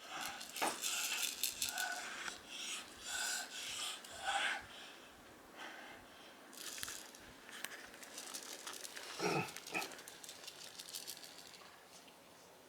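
Cat teaser toy rustling and crinkling in irregular bursts as a cat plays with it, with small scuffs and clicks, busiest in the first four seconds. A short pitched cry about nine seconds in.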